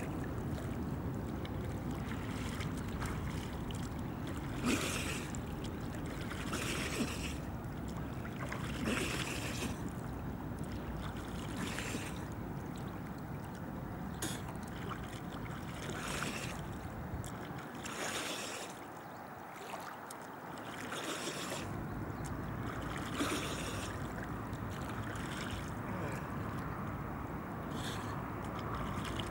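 River water splashing in short bursts every couple of seconds over a steady low rumble.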